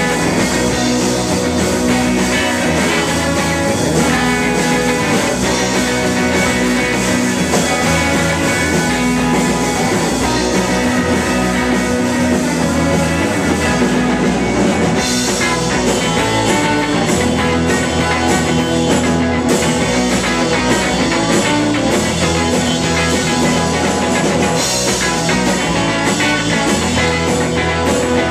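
Live rock band playing loudly: electric bass guitar and a drum kit with cymbals, driving steadily through a song.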